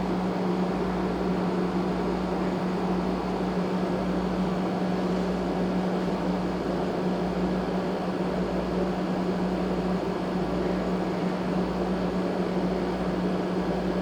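Steady mechanical hum with a strong low tone, even and unbroken throughout.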